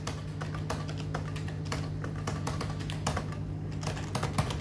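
Illuminated plastic arcade push buttons on a code-breaking game console clicking rapidly and irregularly as two players press them, like fast typing, over a steady low hum.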